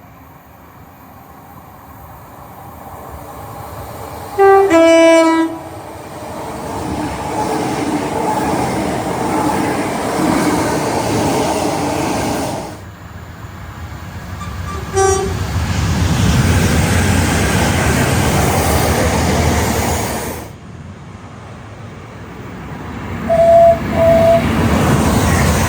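Trains running past at speed in three separate passes, each a swelling rumble of wheels and traction noise. One gives a two-tone horn blast, high note then low, about four and a half seconds in. Another gives a short horn toot a little after the middle, and the last gives two short high-pitched toots near the end.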